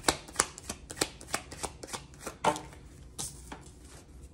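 A tarot deck being shuffled by hand: a run of quick, irregular card snaps and slaps, several a second, the sharpest about two and a half seconds in.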